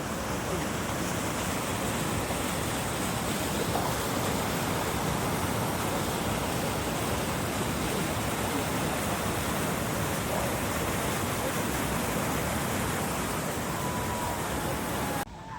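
Waterfall: a steady, loud rush of falling water that starts and cuts off suddenly.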